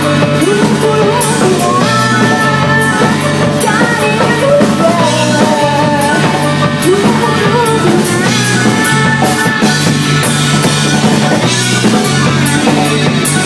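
Rock music: a drum kit keeps a steady beat under guitar and a gliding melody line.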